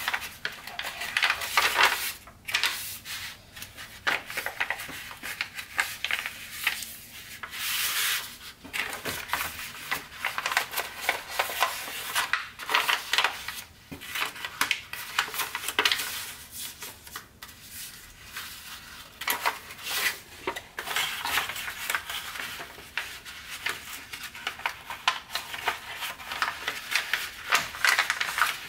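A sheet of Tant origami paper crinkling and rustling as it is folded and creased by hand, in irregular bursts of rubbing and crackling.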